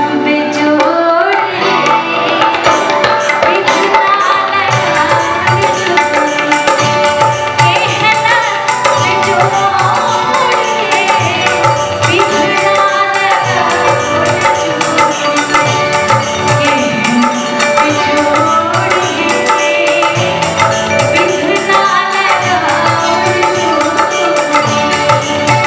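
Live Indian folk music: tabla playing a steady rhythm under held harmonium tones and a wavering melody line.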